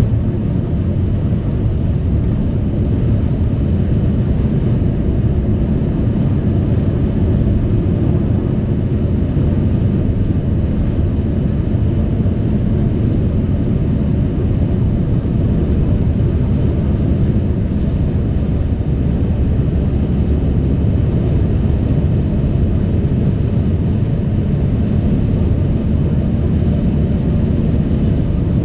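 Steady low drone of road and engine noise from a car driving at a constant speed, heard from inside the cabin.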